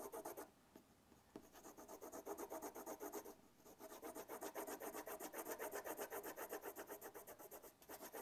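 A pencil hatching on drawing paper: rapid, even back-and-forth strokes, several a second, laying down dense cross-hatching for a shadow. The strokes break off briefly about half a second in and again a little after three seconds.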